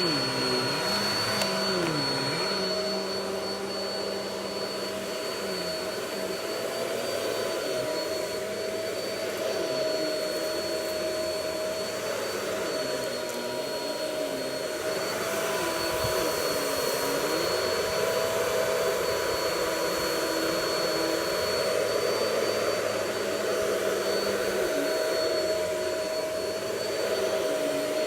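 Vacuum cleaner running steadily, its motor giving a constant whine over a rushing airflow. A lower hum dips in pitch and comes back every few seconds.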